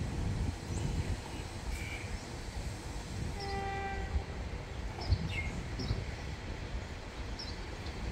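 Railway track-maintenance vehicle creeping along the track with a low engine rumble, giving one short horn blast about three and a half seconds in.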